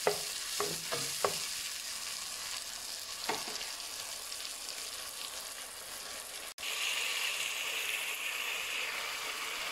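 Spice paste of onion, ginger-garlic and ground spices sizzling in oil in a non-stick pan as it is sautéed down, with a wooden spoon stirring and knocking against the pan a few times near the start. After a cut about six and a half seconds in, the sizzle is louder and steadier as the paste bubbles.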